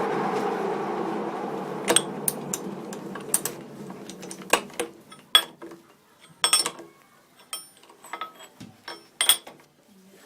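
A metal lathe running down, fading out over the first few seconds, followed by a series of sharp metal-on-metal clinks and clicks.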